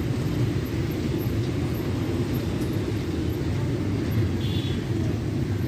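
Steady low outdoor rumble with no clear events, with a brief faint high tone about four and a half seconds in.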